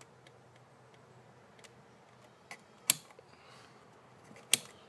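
Plastic buttons and rotary dial of a Hardie Rain Dial sprinkler controller clicking: a few faint button clicks early on, then two sharp, much louder clicks about a second and a half apart as the dial is turned to the next zone.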